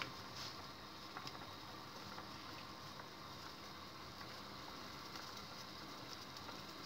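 Chicken broth simmering in a saucepan on a gas hob: a faint, steady bubbling with a few small clicks in the first second or so.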